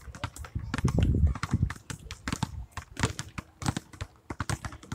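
Several basketballs being dribbled at once on asphalt, an overlapping, irregular patter of bounces several times a second.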